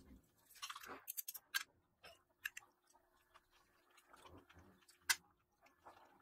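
Scattered light clicks and taps, a quick cluster about a second in and the sharpest one about five seconds in, over a faint steady hum.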